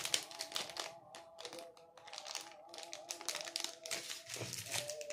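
Crinkling of plastic snack wrappers as a hand picks up and moves the packets, in short irregular rustles over background music with a steady melody.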